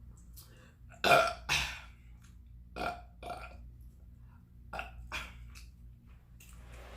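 A person burping: a loud double burp about a second in, then two quieter double burps around three and five seconds in.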